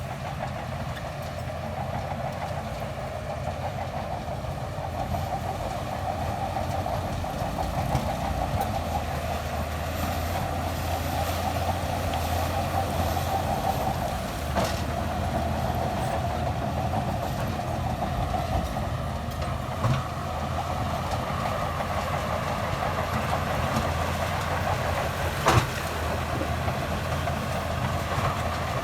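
Heavy diesel construction machinery running steadily at a worksite, with a few sharp metallic knocks about halfway through and near the end.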